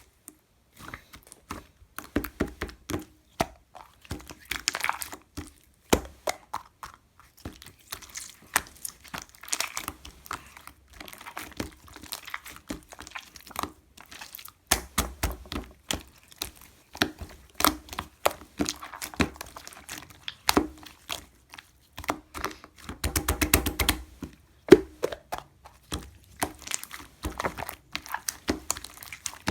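Slime being squished and pressed by hand, making sticky clicks and pops throughout, with a quick run of rapid crackling clicks about three quarters of the way in.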